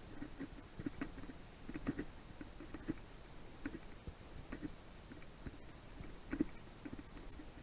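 Small waves lapping against a fibreglass skiff's hull, a faint, irregular run of soft slaps and plops.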